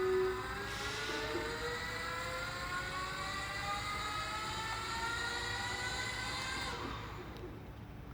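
Electric drive whine from the RWC500 remote-control chassis's brushless rear-axle motor, rising steadily in pitch as the gears are stepped up, then stopping about seven seconds in.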